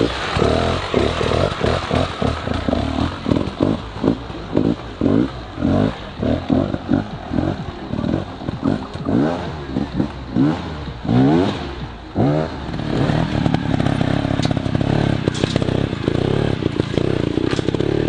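Dirt bike engines revved in quick repeated blips, the pitch rising and falling about once or twice a second. After about twelve seconds the engine holds a steadier, busier run.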